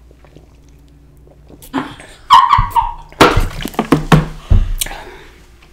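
Loud, close gulping and straining throat sounds as fizzy Diet Coke is chugged from a two-liter bottle: a run of five or six heavy gulps and grunts starting a little under two seconds in, while trying to hold back a burp.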